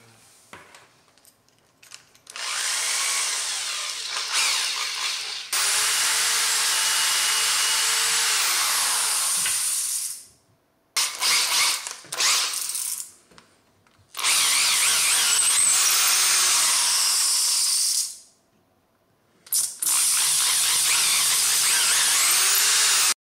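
Corded electric drill boring pilot holes through wooden poles. It makes several runs of a few seconds each, with short stop-start trigger blips between them, and the motor whines up to speed and winds down at each start and stop.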